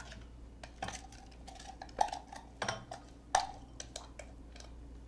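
A handful of light clinks and knocks, some with a short ring, as the Nutri Ninja chopper's blade and plastic bowl are handled to take out the chopped red onion.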